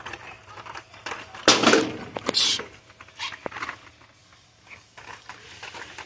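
Hot Wheels blister-pack cards rustling and clacking together as they are flipped through on a store peg, with two louder bursts of clatter about a second and a half in, then quieter handling.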